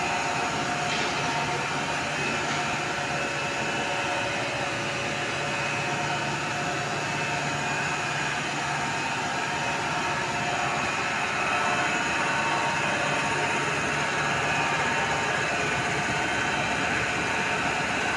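Stretch film machine running steadily: a continuous mechanical whir of motors and rollers, with a low hum and a few faint steady whines above it.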